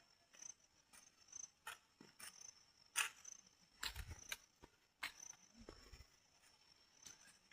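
Scattered knocks and scrapes of a hand hoe working soil, a few with a low thud, over a cricket chirping faintly in short regular pulses.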